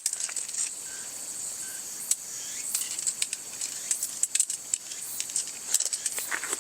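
Steady high-pitched insect chorus in summer woodland, with scattered light clicks and rustles.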